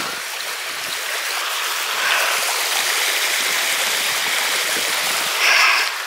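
Small spring-fed waterfall running down over rocks at the foot of a cliff, a steady splashing trickle that swells briefly near the end.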